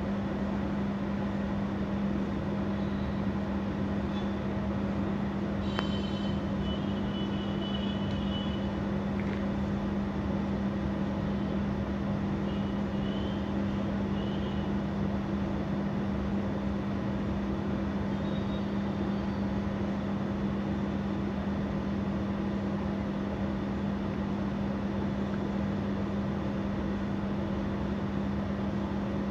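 Steady low machine hum over constant room noise, with a few faint high chirps now and then and a single faint click about six seconds in.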